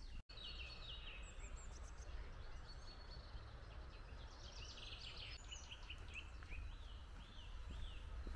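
Songbirds singing in leafless spring woodland: many short chirping phrases, with a run of repeated falling notes near the end, over a low steady rumble.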